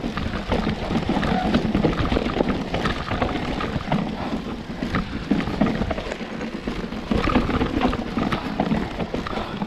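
Mountain bike clattering down a rough, rocky trail: a continuous dense rattle of irregular knocks from tyres striking stones and the chain and frame shaking.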